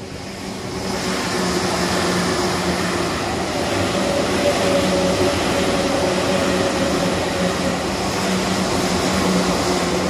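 Tokyu 8500 series electric train running across a level crossing: the rumble and clatter of its wheels on the rails swells about a second in, holds steady while the cars pass, and starts to fade near the end.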